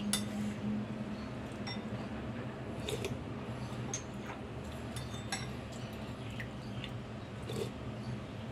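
Metal fork and spoon clinking and scraping against a ceramic bowl of noodle soup in scattered light clicks, the sharpest just after the start, over a steady low hum.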